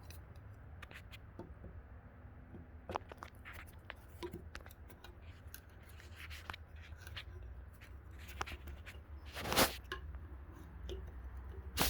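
Small clicks and scrapes of metal screw hooks being twisted in by hand, with a louder short scrape about nine and a half seconds in and a sharp knock near the end, over a steady low hum.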